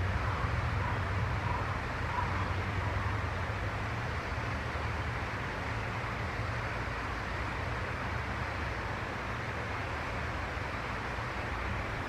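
Steady outdoor background noise: a low rumble with an even hiss over it, like distant traffic.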